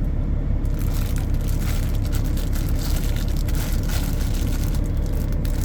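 Steady low rumble of an idling truck engine, with a few light clicks over it.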